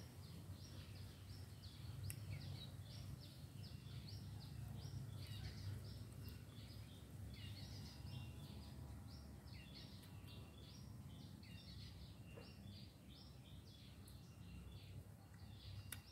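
Faint birds chirping in a quick, continuous run of short high notes, over a steady low background rumble.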